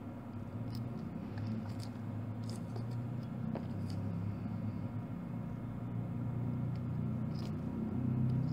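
A steady low hum, with a few faint small clicks and scrapes as a chip on its adapter and a jumper wire are pushed into a plastic solderless breadboard.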